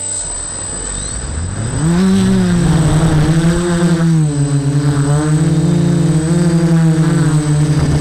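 DJI Flamewheel F450 quadcopter's brushless motors and propellers spinning up and lifting off from the ground, heard close up from a camera on the frame. The hum climbs in pitch over about a second, then turns to a loud, steady hum whose pitch wavers up and down as the throttle is worked.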